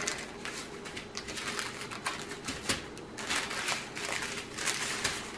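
Small plastic baggies of diamond-painting drills being handled and fingered, making irregular light clicks and crinkles as the beads shift inside.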